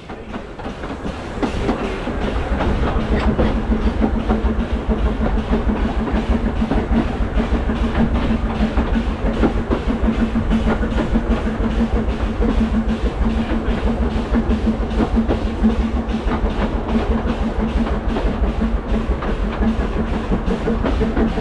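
Narrow-gauge steam train running along the line, its coaches and wheels rattling over the track in a dense run of clicks and knocks that rises over the first couple of seconds.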